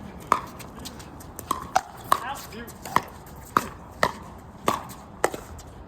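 A pickleball rally: about nine sharp, hollow pops of a plastic pickleball struck by paddles and bouncing on the court, irregularly spaced and coming quickly in the middle of the exchange.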